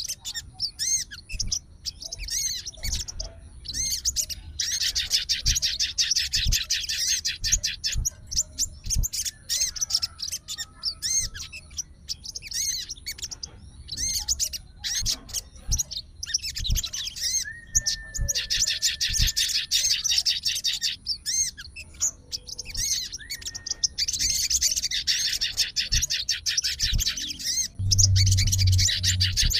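Sogon songbird singing in long bouts of rapid, high chattering warble. There is a short held whistle about two-thirds of the way through. A low rumble comes near the end.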